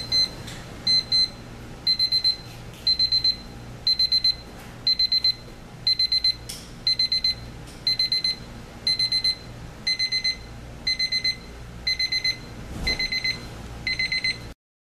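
Westclox 47508S travel alarm clock's electronic alarm beeping: quick high-pitched groups about once a second, two beeps per group at first, then four per group from about two seconds in, cutting off suddenly near the end.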